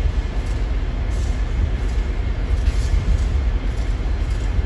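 Metra EMD F40PH diesel-electric locomotive standing at the platform with its 16-cylinder two-stroke diesel running, a steady deep engine rumble.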